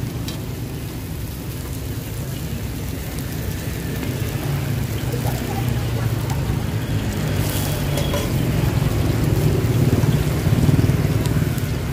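Steady road-traffic noise with a low rumble, growing louder in the second half, with a light hiss over it.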